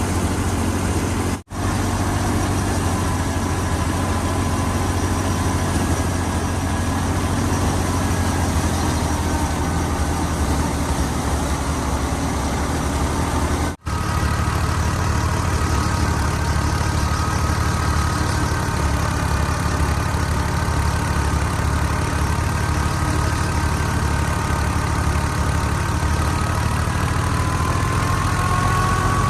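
Fiat 480 tractor's diesel engine running steadily under load while it drives a wheat thresher, with the thresher's drum and belts giving a dense mechanical din and a faint whine. The sound cuts out briefly twice.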